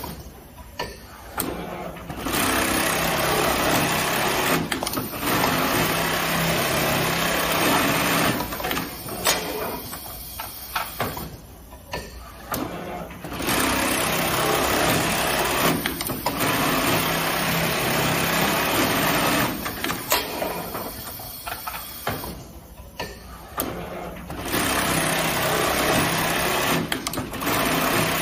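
Supreme SP 3020GS automatic coin-pocket sewing machine stitching at high speed in three long runs. Brief pauses between the runs hold sharp clicks and knocks.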